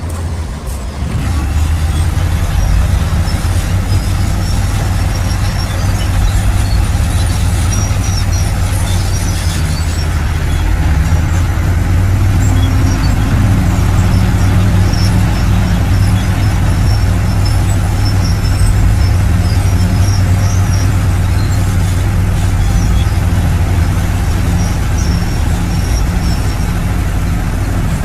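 Shantui bulldozer's diesel engine running hard under load, a steady heavy drone that grows louder about a second in, with light high-pitched clinks over it.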